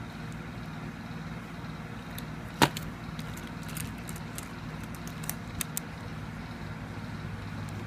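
Hard plastic pacifiers clacking as they are handled and set down: one sharp clack about two and a half seconds in, then a few lighter clicks, over a steady low hum.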